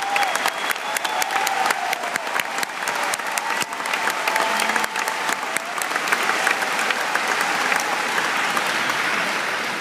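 Large convention crowd applauding, a dense steady clatter of many hands clapping that eases slightly near the end.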